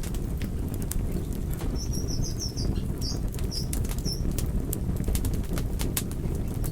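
Wood fire in a fireplace burning with a steady low rumble and irregular sharp crackles and pops from the burning logs. Between about two and four seconds in, a quick series of short high squeaks rides over it.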